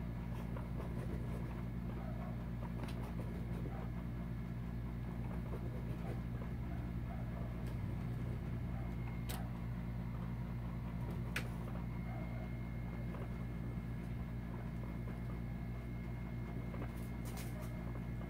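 Steady low room hum with a faint high whine running through it, and a few faint clicks.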